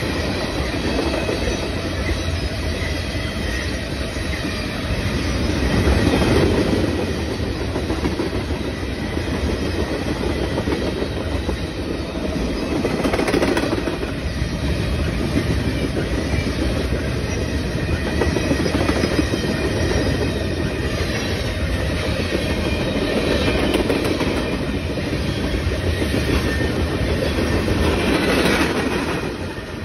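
A freight train's tank cars and covered hoppers rolling past close by: a steady rumble and clatter of steel wheels on the rails, swelling louder every several seconds, with a faint high squeal from the wheels.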